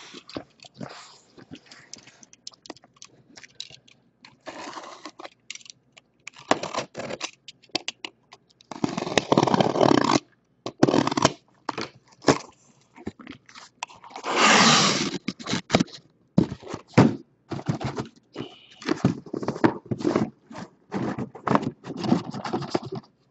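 A cardboard shipping case full of trading-card boxes being opened and unpacked by hand: cardboard scraping and crunching, and shrink-wrapped boxes being handled. The noise comes in irregular bursts, the longest and loudest about two-thirds of the way through.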